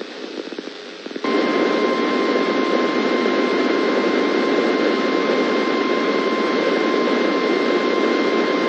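NOAA Weather Radio warning alarm tone, a steady 1050 Hz beep, comes in about a second in over heavy radio static and holds. The tone marks the start of an emergency warning broadcast, here a severe thunderstorm warning.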